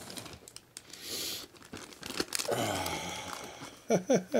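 A plastic zipper storage bag being pulled open and handled, its plastic crinkling and crackling, with a short hiss about a second in.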